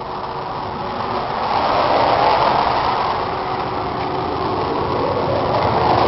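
John Deere 6310 tractor's diesel engine running at a steady idle. It grows louder about one and a half seconds in.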